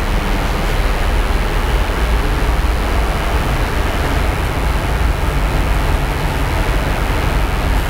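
Steady, loud rushing noise with a low rumble underneath, unchanging throughout.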